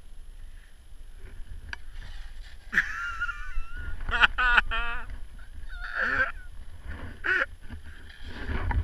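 Skiing downhill with a low rumble of wind and skis running on snow. A person's voice calls out in short wordless cries several times, the loudest about four seconds in with a wavering pitch.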